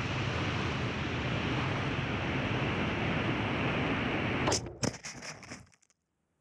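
Onboard-camera sound of a Mini Drak FPV flying wing in flight: a steady rush of wind and motor noise. About four and a half seconds in, a quick series of sharp knocks follows as the wing touches down and skids over the snow, and then the sound cuts off.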